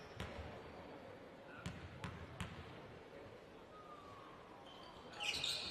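A basketball bounced four times on a hardwood court floor at the free-throw line: one bounce, then three quick ones, before the shot. Crowd voices swell near the end.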